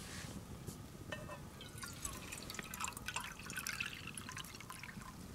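Water poured in a thin stream into a small titanium cooking pot, trickling and dripping irregularly as it is measured to about 1.5 cups.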